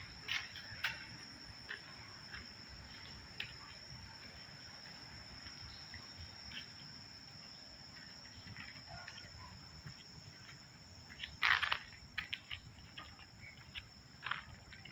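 Steady high-pitched insect trill with scattered soft clicks and taps, and a louder crackling rustle about eleven and a half seconds in.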